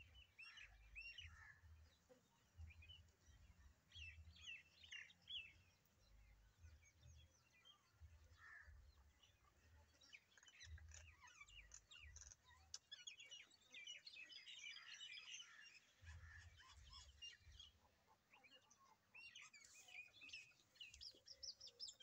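Mynas chirping and chattering faintly: many short, quick calls, thickest about halfway through and again near the end.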